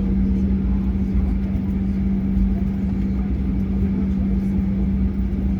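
Boeing 737-800 cabin noise while taxiing after landing: a steady low hum with a constant tone and an uneven rumble underneath.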